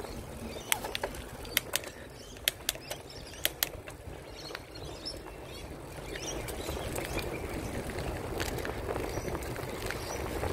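Wind buffeting a phone's microphone during a bicycle ride, with a steady rumble that grows louder about six seconds in. About half a dozen sharp clicks come in the first four seconds.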